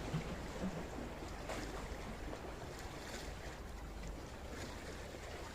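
Wind rumbling on the microphone over the steady wash of sea surf, with a few faint ticks.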